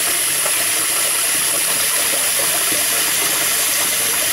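Tap running steadily into a bathroom basin, the stream splashing into standing water that won't drain away because the drain is blocked.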